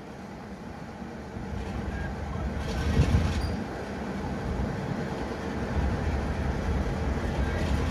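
Diesel locomotive's engine running as it draws a train of coaches slowly closer, growing steadily louder.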